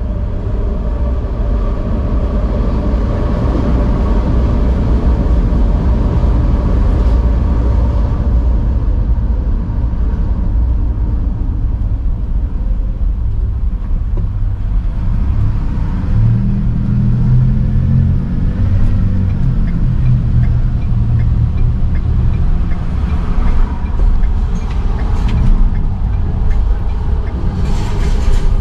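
City street traffic: a steady low rumble of car and truck engines, with a heavier engine growing louder from about sixteen to twenty-one seconds in.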